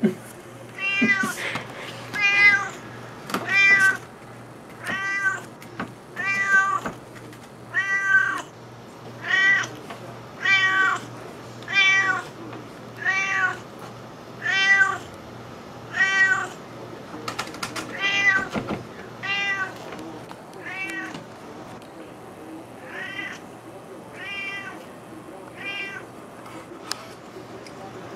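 Domestic cat meowing over and over, about twenty short, arched meows a little more than a second apart, with one brief pause near three quarters through: it is begging for the salmon it smells.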